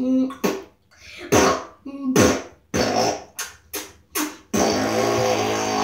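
Mock fart noises: a string of short pops and raspberries, some falling in pitch, then one long steady buzzing one starting about four and a half seconds in.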